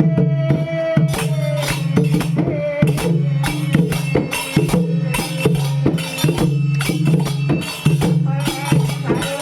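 Bhajan music: a steady low drone carries under evenly repeated hand-percussion strokes at about three a second. A held higher note fades out in the first second and a half.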